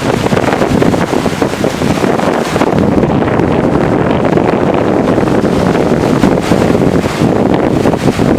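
Sea waves and surf, heavily overlaid by strong wind buffeting the microphone in loud, uneven gusts.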